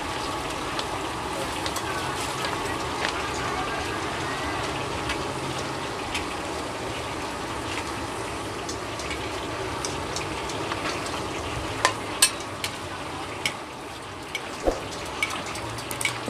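Food sizzling in a large aluminium wok as it is stir-fried with long metal spatulas, the metal scraping and clacking against the pan now and then. Several sharper knocks come in the last few seconds.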